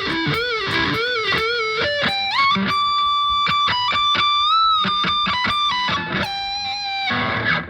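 Legacy Les Paul-style set-neck mahogany electric guitar played through a Roland Cube Lite amp with a distorted tone: a lead line with repeated string bends, a slide up into a long held note, then a quick run of notes.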